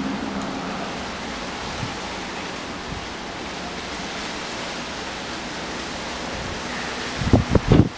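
Steady rushing wind noise, with low gusts buffeting the microphone near the end.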